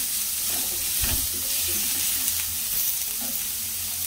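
Chopped onion, capsicum, green chilli, garlic and ginger sizzling in hot oil in a wok, stirred with a spatula that scrapes across the pan, with a firmer knock about a second in.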